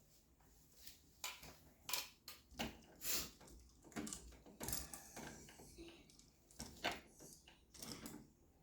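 Irregular small clicks, taps and scrapes from hands working wires and plastic wire nuts at a wall switch box.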